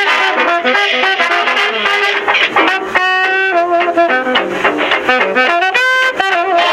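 Music led by brass instruments, with a trumpet-like melody moving quickly from note to note.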